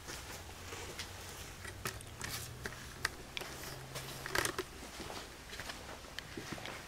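Handheld camera being picked up and carried: scattered light clicks and rustles over a steady low hum.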